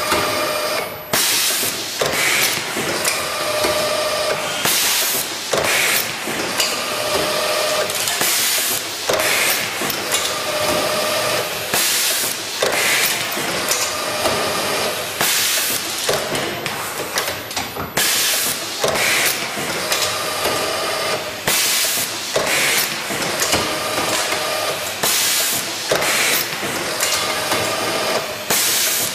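Automatic screw assembly machine cycling. Sharp blasts of compressed air recur every two seconds or so, alternating with short whirs of the screwdriving spindle, over steady machine hiss.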